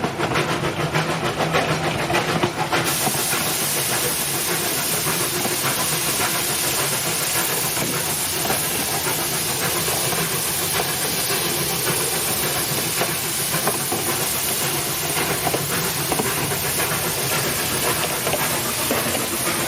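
Narrow-gauge steam locomotive letting off steam: a loud, steady hiss that starts suddenly about three seconds in, over the quieter sounds of the locomotive.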